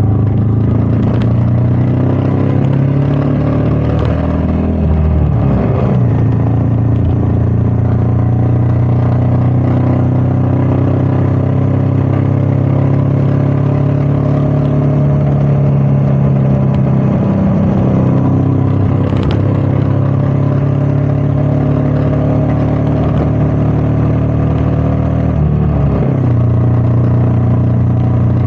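Royal Enfield Meteor 350's single-cylinder engine running under way with wind noise. The engine note changes about five seconds in and again near the end.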